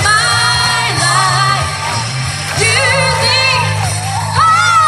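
A woman singing a pop song into a microphone over backing music, amplified through stage speakers.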